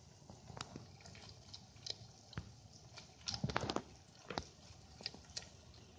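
Bearded dragon chewing dubia roaches: faint, scattered crunching clicks, with a denser run of them a little past halfway.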